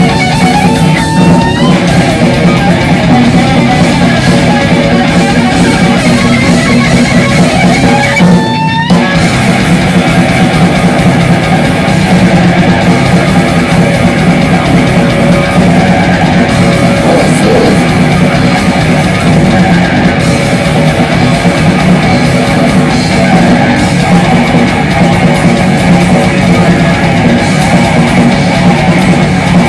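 Heavy metal band playing live and loud: distorted electric guitar, bass guitar and drum kit. Rising guitar slides come about a second in and again about eight seconds in, with a brief drop in the low end around the second one.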